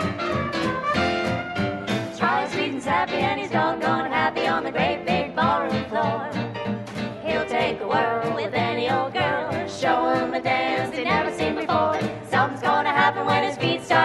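A small jazz band plays an upbeat swing-era tune. About two seconds in, three women's voices come in singing close harmony into one microphone.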